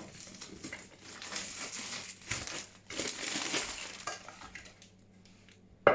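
Packaging crinkling and rustling as a set of glass baking dishes is unwrapped. A sharp knock comes right at the end.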